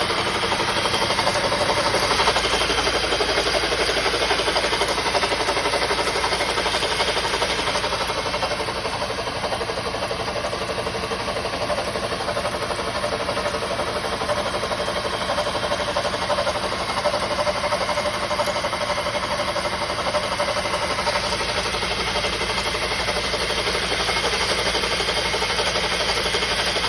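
2007 Honda CR-V 2.2 i-CTDi diesel engine running with a loud, quick knock repeating steadily, a fault the owner cannot identify.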